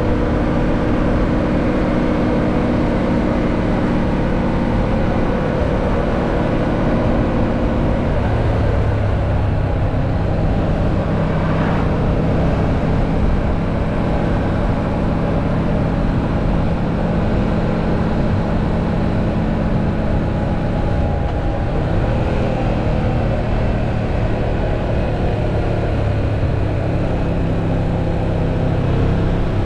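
Yamaha MT-07's 689 cc parallel-twin engine running under way on a ride, heard with wind and road noise. Its note steps down about eight seconds in and shifts again a little past twenty seconds.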